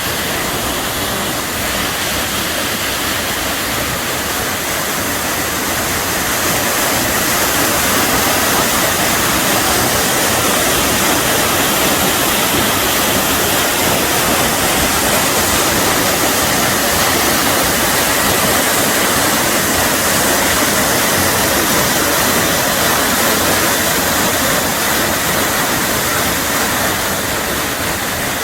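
Mountain waterfall: a loud, steady rush of falling water, swelling a little after the first few seconds and easing slightly near the end.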